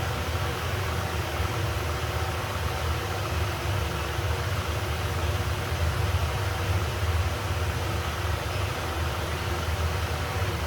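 Khaitan exhaust fan running steadily: a constant low hum with the even rush of air over it.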